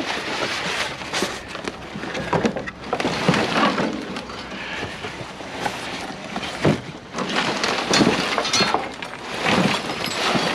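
Construction-dumpster debris being shifted and pulled apart by hand: an irregular run of knocks, cracks, crunches and clinks, with a louder knock about six and a half seconds in.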